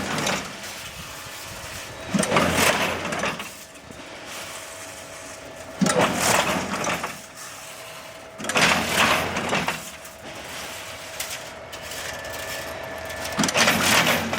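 Heavy crimped wire mesh machine running, with a steady hum and four louder noisy surges, each about a second long.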